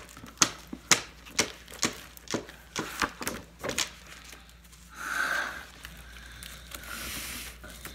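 Pages of a spiral-bound PODD communication book flipped quickly back to page one, each page landing with a sharp flap, about three a second for the first few seconds, then a softer rustle of paper.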